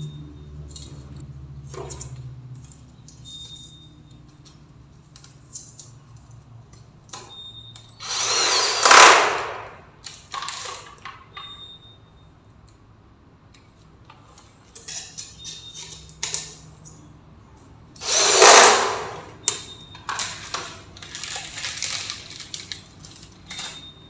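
Corded electric drill run in two short bursts, one about 8 s in and one about 18 s in, each lasting under two seconds. Light clicks and knocks of handling come between them.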